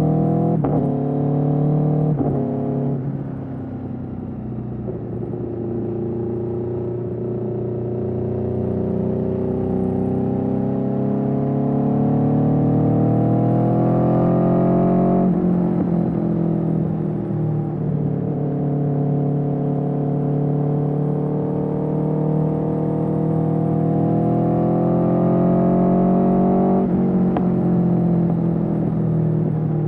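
2021 Aprilia Tuono V4's V4 engine through an Austin Racing GP1R exhaust, pulling up through the revs under acceleration, its pitch climbing steadily and dropping sharply at each upshift. There are two quick shifts in the first few seconds, then long pulls with shifts about halfway through and near the end.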